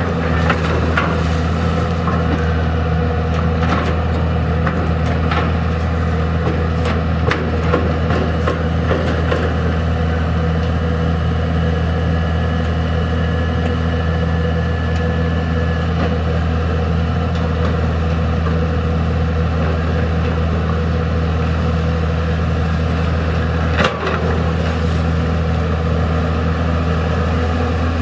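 Komatsu PC200 long-arm excavator's six-cylinder diesel engine running steadily under working load, a deep even hum. Scattered clanks and knocks from the working boom and bucket come in the first half, with one sharp knock near the end and a faint thin whine for a few seconds midway.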